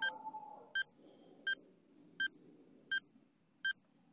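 Quiz countdown timer beeping: six short electronic beeps, about one every three-quarters of a second.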